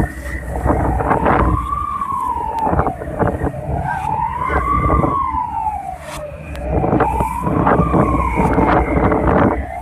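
Wailing alarm siren, its pitch rising and falling about every three seconds, over a low rumble and wind noise.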